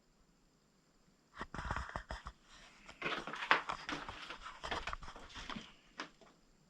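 Footsteps crunching and scraping over debris on a floor, irregular steps starting about a second and a half in and stopping shortly before the end.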